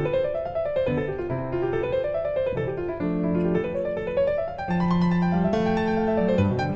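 Background piano music playing arpeggios that rise and fall, with low bass notes held beneath.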